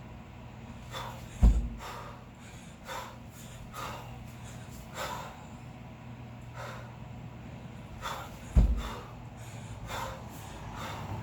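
Forceful rhythmic breathing, short sharp exhales about once a second, from a lifter working through a kettlebell long cycle with two 16 kg bells. Twice, about seven seconds apart, comes a heavy low thump, roughly once per repetition.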